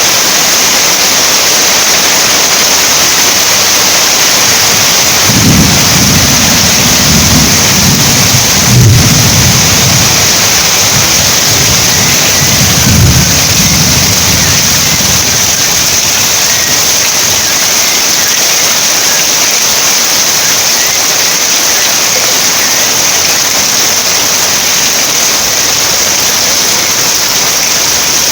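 Heavy rain falling steadily, with a deep rolling rumble of thunder from about five seconds in that fades by about fifteen seconds.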